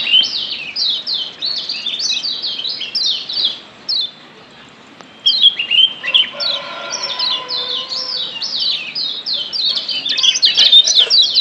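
Kecial kuning (Lombok yellow white-eye) giving rapid, sharp down-slurred 'ciak' chirps, about three to four a second, with a short pause about four seconds in before the chirping resumes and gets denser near the end.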